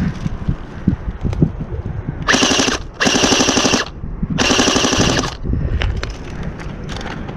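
An airsoft gun firing three short full-auto bursts, each a rapid rattle of shots lasting under a second, with wind rumbling on the microphone.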